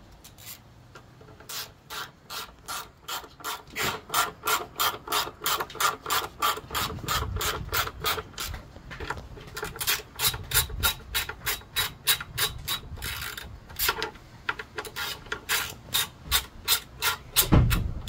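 Hand socket ratchet clicking in quick, even runs of about four clicks a second as the front brake caliper mounting bolts are run in, with two short pauses and a heavier thump near the end.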